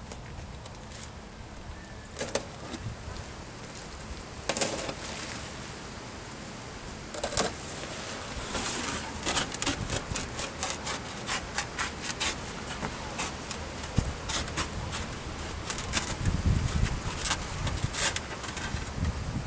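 Cutting out a circular hole in a template board by hand: a few separate knocks, then from about seven seconds in a quick, uneven run of short scratchy strokes.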